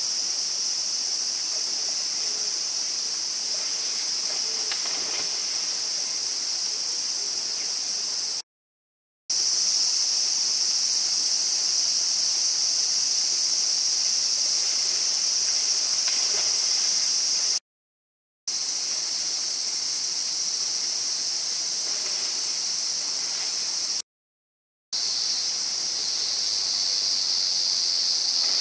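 Steady, high-pitched drone of a summer insect chorus, with faint splashes from a kayak paddle on slow river water. The sound cuts out briefly three times.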